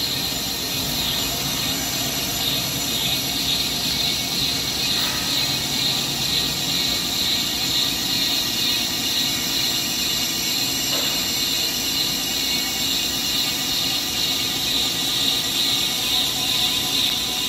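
Hankook Protec 9-NC CNC lathe turning a large forged metal part: the carbide insert cutting the face of the spinning workpiece with a steady, high-pitched hiss and squeal over the low hum of the machine.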